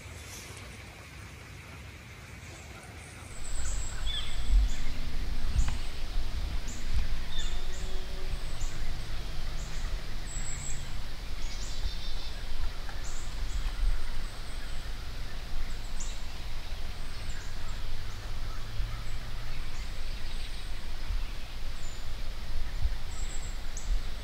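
Woodland ambience: small birds giving short, high chirps every second or so over a low, fluctuating rumble. The level jumps suddenly about three and a half seconds in.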